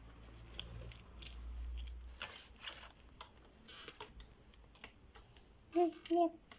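Slime being worked by hand, giving scattered small clicks and crackles. Near the end come two short, loud sounds of a voice.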